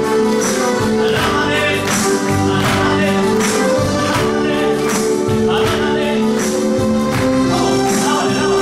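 Upbeat Christian worship song played from a backing track with a steady beat of about two strikes a second, the congregation singing along, and long held blasts of a twisted shofar horn over the music.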